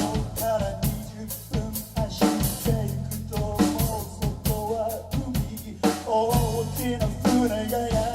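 Live band music: a drum kit playing a steady beat with sharp snare and bass-drum hits, under a wavering melodic line and a sustained low bass.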